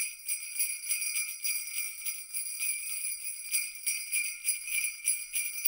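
Jingle bells shaken in a steady, even rhythm, with a bright high ringing held underneath.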